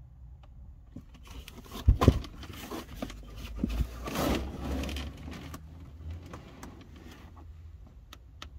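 Irregular clatter and rustling of hard objects being handled, with two sharp knocks about two seconds in.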